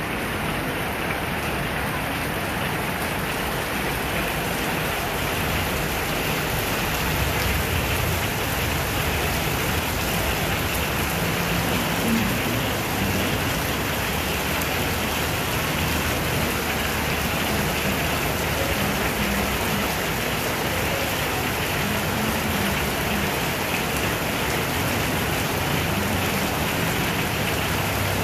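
Heavy rain falling steadily on a wet street, a constant hiss. Now and then there is a low engine hum from vehicles passing on the wet road.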